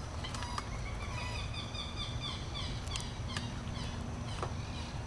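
Wetland birds calling, with a run of quick, repeated falling chirps from about one to three seconds in and a few sharp single notes later, over a steady low background rumble.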